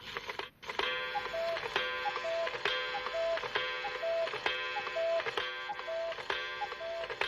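Instrumental song intro: a repeating figure of short pitched notes over an even ticking beat, with a strong beat a little under once a second.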